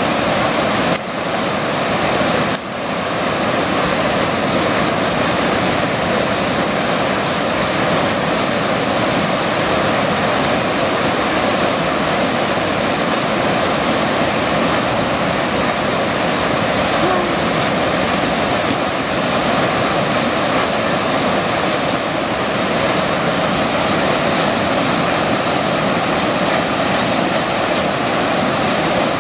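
Fast river water churning through a standing wave: a steady, loud rush of whitewater, dipping briefly twice in the first few seconds.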